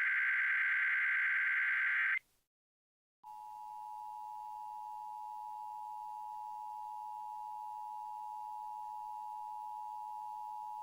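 Emergency Alert System test signal. A SAME header data burst, a harsh buzzing digital screech, cuts off about two seconds in. After a second of silence the EAS two-tone attention signal starts and holds one steady tone.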